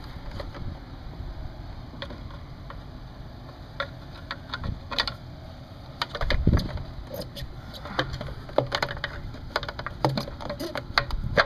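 Scattered clicks, knocks and rubbing as a rubber-and-plastic cold air intake tube and its metal hose clamps are worked back into place over an engine, with a few duller thumps.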